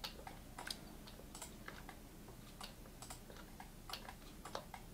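Faint, irregular clicking of a computer mouse and keyboard, about fifteen quick clicks, while mesh faces are shift-selected.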